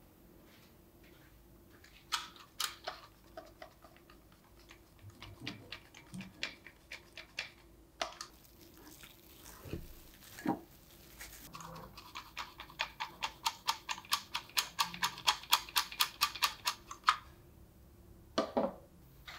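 Hand-held mesh sieve being tapped to dust cocoa powder, first in scattered taps, then in a fast, even run of about five or six taps a second for several seconds. A single louder knock comes near the end.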